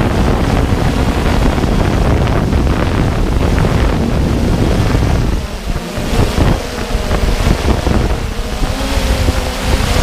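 Walkera Tali H500 hexacopter's motors and propellers running in flight, a steady whirring hum under heavy wind buffeting on the camera's microphone. The rumble eases briefly about five and a half seconds in.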